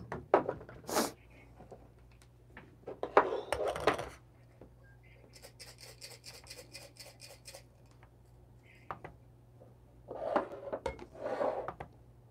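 Coffee brewing gear handled on a wooden table: knocks and light clatter. In the middle there is a quick, even run of light clicks lasting about two seconds.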